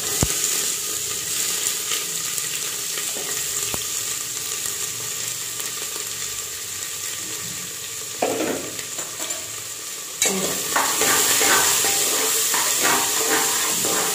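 Chopped onions sizzling as they fry in hot mustard oil in an aluminium pressure cooker on a high gas flame. About ten seconds in, a spatula starts stirring and scraping the pan, and the sizzling gets louder.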